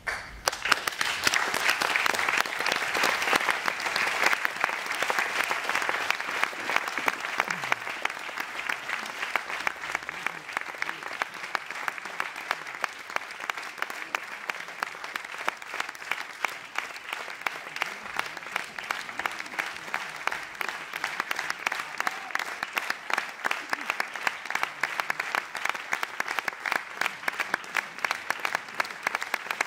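Theatre audience applauding. The applause is loudest and densest in the first few seconds, then settles into steady clapping with single claps standing out.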